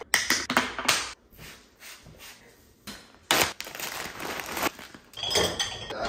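Glass food-storage containers, their plastic lids and dishes clattering as they are handled and put away: a rapid run of sharp clacks and clinks in the first second, then scattered knocks, with one louder knock a little after three seconds in.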